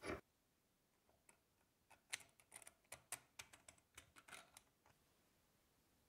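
A dull thump at the start, then an irregular run of light clicks and taps as a steel hammer head is worked on and off the end of a wooden handle during test-fitting.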